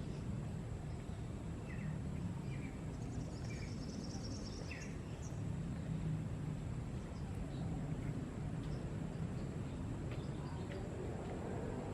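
Outdoor ambience: a steady low rumble with faint, short bird chirps four or five times in the first half.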